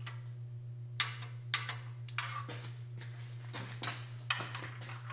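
Sharp metallic clicks and clinks of a torque wrench and socket working on the 13 mm transmission pan bolts, a handful spaced irregularly, over a steady low hum.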